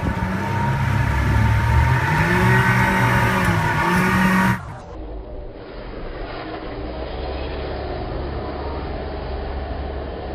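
A vehicle engine revving, its pitch rising and falling, for about four and a half seconds. It then gives way abruptly to a steady low engine rumble.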